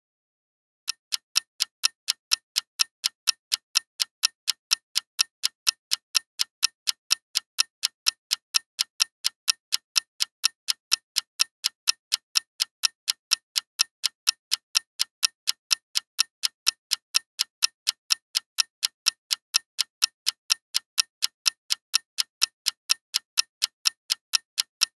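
Clock ticking: a long, even run of sharp ticks, about three a second, starting about a second in.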